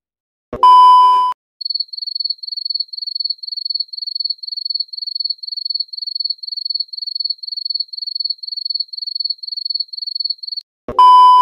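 A short, loud censor-style beep, then a cricket chirping sound effect: rapid high-pitched trilled chirps repeating about twice a second for some nine seconds, then another short beep near the end.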